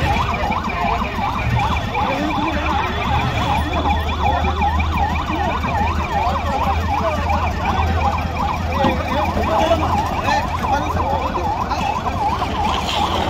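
Emergency vehicle siren in a fast yelp, its pitch sweeping up and down about four times a second, over a steady low engine and traffic rumble.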